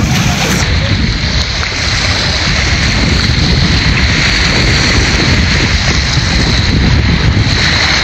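Wind blowing across the microphone with a steady low rumble, over small waves washing up onto a sandy beach.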